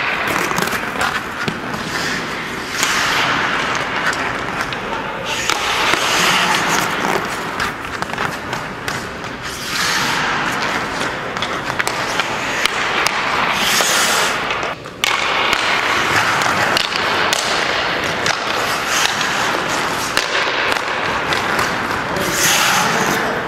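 Hockey skate blades carving and scraping on the ice in repeated hissing swells, with sharp clacks of sticks hitting pucks.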